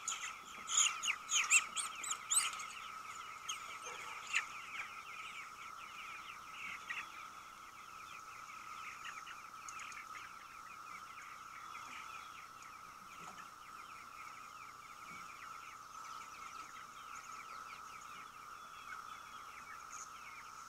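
Young chickens peeping in quick high chirps, loudest and densest in the first two to three seconds, then fainter and scattered, over a steady high drone.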